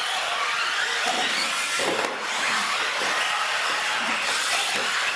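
Several radio-controlled UTV trucks racing on a concrete floor: the whine of their electric motors shifts in pitch as they speed up and slow down, over tyre noise.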